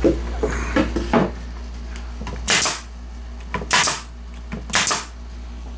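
A few soft knocks from handling wooden workpieces during a glue-up, then three short, sharp bursts of noise about a second apart over a steady low hum.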